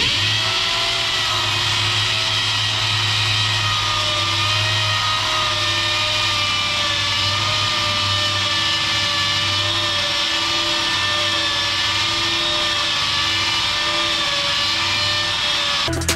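Electric power tool running steadily, buffing a stainless-steel exhaust pipe with a felt polishing wheel: an even whine whose pitch wavers slightly.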